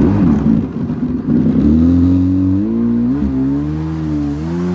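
1996 Yamaha WaveRunner III's two-stroke engine being throttled up as the jet ski pulls away, with water rushing at first. From about two seconds in the engine note rises and wavers with the throttle, swooping up once near the middle.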